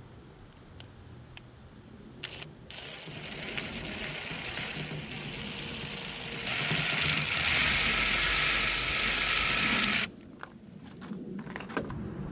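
Power drill running for about seven seconds, getting louder partway through, then stopping suddenly, with a few small clicks of handling before and after.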